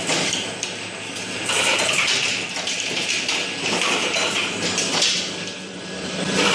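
Automatic pill-bottle packing line running: the conveyor and spindle capping machine give a continuous mechanical clatter and rattle of plastic bottles and metal parts. The loudness rises and falls every second or two.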